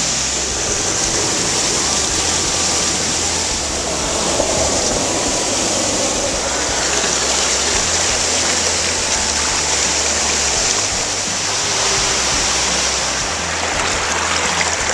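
Steady, loud rush of water from a waterfall on a woodland river.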